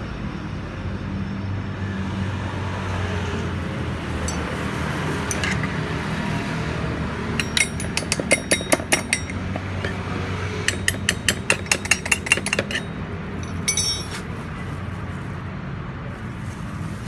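A steady low mechanical hum, with two runs of rapid metallic clicking from hand work on metal parts. The second run is longer, and a short rattle follows near the end.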